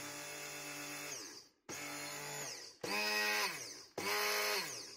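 Fakir Lucca hand blender's electric motor running empty in short bursts, about four of them, each winding down in pitch as it is let go; the last two are louder and higher-pitched. It is the test run after the blade shaft's plastic coupling was replaced, and the shaft now turns.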